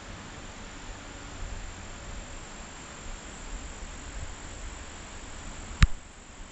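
Insects in woodland trilling steadily: one continuous high-pitched note over a soft background hiss. A single sharp click near the end is the loudest sound.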